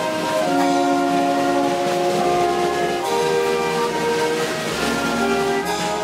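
A small brass and wind band of trumpet, French horns, euphonium, tuba, saxophone and clarinet plays a tune in long held chords.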